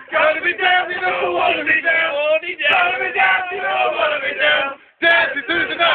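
A man's voice singing live, heard in thin, low-quality sound with no high end, with a brief break about five seconds in.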